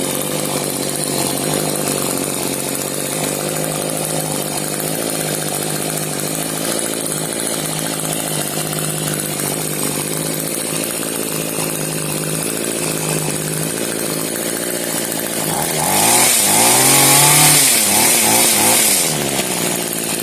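Echo HC2020 hedge trimmer's small two-stroke engine idling steadily on its newly replaced carburetor, then revved once about sixteen seconds in, its pitch rising and falling back over some three seconds. It now holds an idle on its own and runs.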